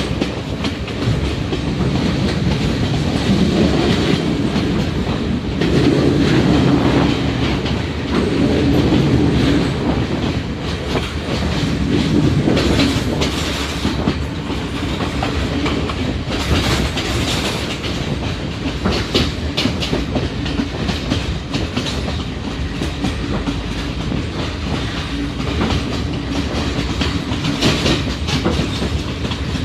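Passenger train running along the track, heard from inside a carriage: a steady rumble with wheels clicking over the rail joints, and a stronger low drone over the first ten seconds or so.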